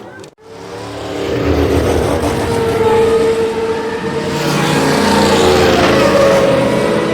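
A motor vehicle engine running loud with a steady tone, starting just after a sudden cut-off less than half a second in and growing louder over the next couple of seconds.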